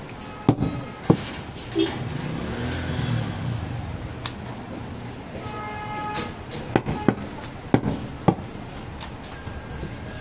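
A large butcher's knife cutting goat meat and knocking on a wooden chopping block: about eight sharp, scattered knocks over a steady background din.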